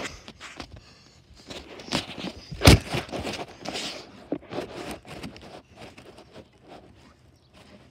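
Footsteps and the scuff and rub of a handheld phone being carried, with one sharp knock about three seconds in; the sounds thin out to faint scuffs near the end.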